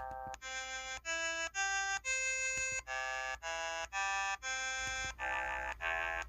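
EV-W350 mobile phone keypad button tones: about ten short, reedy electronic notes in a row, each key press a different pitch, with brief gaps between them.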